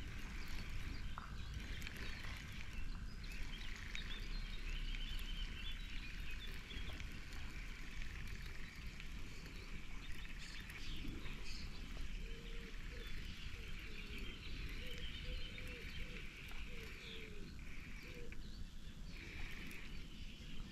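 Pond ambience: frogs and birds calling over a low wind rumble, with a run of short, low calls about halfway through.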